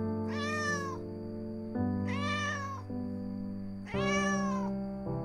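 Young female cat in heat calling: three long, drawn-out meows about a second apart, each rising and falling in pitch, over soft background music.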